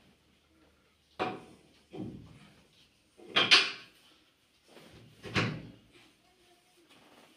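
Four knocks and thumps spread over about four seconds, the third the loudest.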